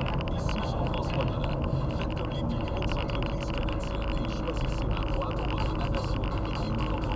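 Car driving slowly up a snowy road, heard from inside the cabin: a steady low engine hum with constant tyre noise on the snow-covered surface.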